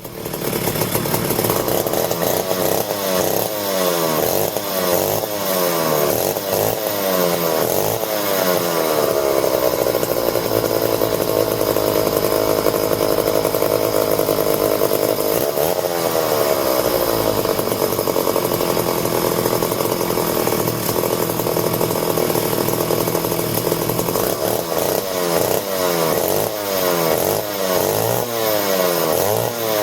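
McCulloch 1-40 chainsaw's two-stroke engine running on its first test run after the carburetor was refitted, revved up and down repeatedly with stretches held at high speed. The carburetor is not yet tuned.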